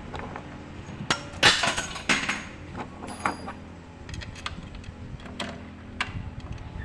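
A quick run of sharp knocks and clinks of hard objects about a second in, then scattered lighter ticks, over a low steady hum.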